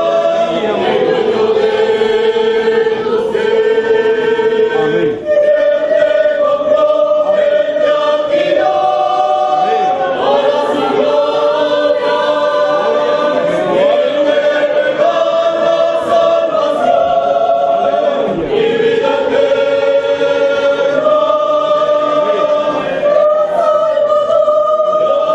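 A youth choir singing a hymn together, holding long notes that change pitch every few seconds.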